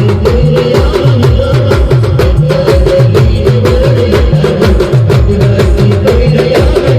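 Loud live band music from an Adivasi village band: a fast, driving drum beat whose deep strokes each drop in pitch, sharp percussion hits, and a wavering melody line over the top.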